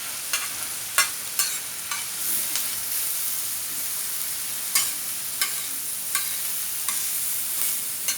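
Onions, tomatoes and spices sizzling as they fry in a pan, a steady hiss, with a utensil knocking and scraping against the pan now and then as the mixture is stirred.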